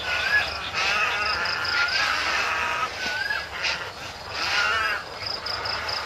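Crowded roost of white egrets and other birds, with many calls overlapping: harsh squawks, rising-and-falling whistled notes, and short runs of rapid high ticking notes now and then.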